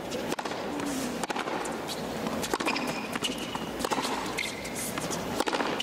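Tennis rally on a hard court: tennis balls struck by rackets with sharp pops about a second apart, and short high squeaks of tennis shoes on the court surface.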